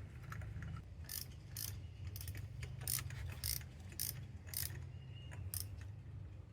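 Ratchet wrench clicking in short bursts, about two a second, as a new spark plug is tightened. A low hum runs underneath.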